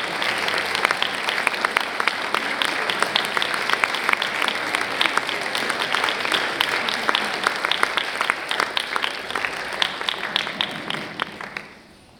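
Audience applauding, many hands clapping together; the clapping dies away near the end.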